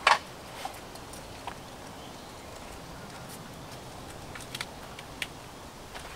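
Scattered sharp clicks and knocks, the loudest right at the start, over a steady background hiss.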